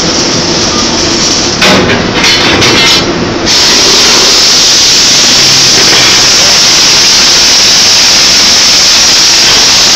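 Dense mechanical noise from automatic pipeline welding with a CRC-Evans orbital welder, with a few sudden louder knocks and clatters in the first few seconds. About three and a half seconds in, a loud, even hiss takes over and holds steady.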